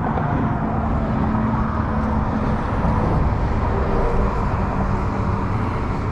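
Steady rumble of road traffic on the bridge, with a faint engine hum through the first half.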